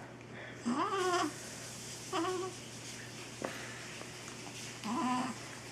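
A five-to-six-week-old baby's short vocal sounds: three brief pitched noises, about a second, two seconds and five seconds in, the first rising in pitch. One sharp click comes between the second and third.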